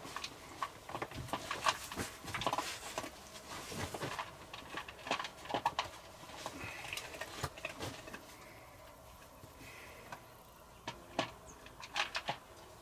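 Sporadic soft rustles and light knocks of a man shifting on a wooden bench and a puppy moving on the dirt floor of a small stone hut, with a quieter stretch partway through and a few sharper clicks near the end.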